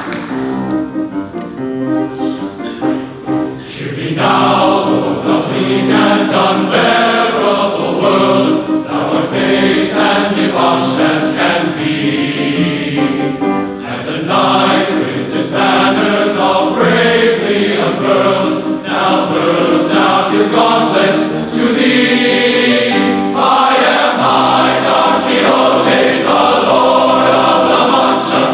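Large men's chorus singing a Broadway medley with grand piano accompaniment, fuller and louder from about four seconds in.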